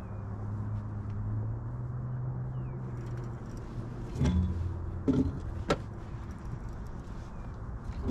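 A steady low mechanical hum on a fishing boat, then a few sharp knocks and clunks about four to six seconds in, as a hooked fish is being worked on the rod.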